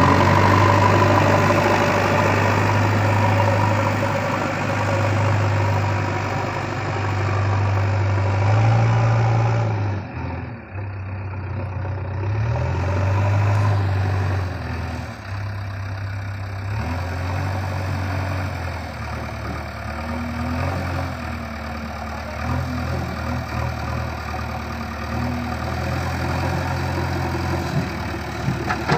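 Diesel engine of a JCB 3DX backhoe loader running, its speed rising and falling in steps as the machine works.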